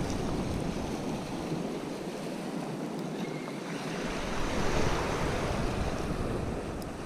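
Wind rushing over the microphone along with water lapping against the rocky shoreline, a steady noise that swells louder for a while midway through.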